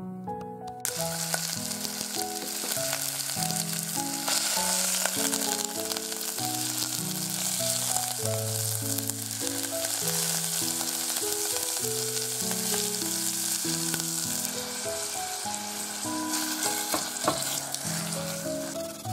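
Ground pork sizzling as it fries in a thin film of salad oil in a stainless saucepan, stirred with a spatula while it turns from raw to half browned; the sizzle starts about a second in. Background music plays throughout.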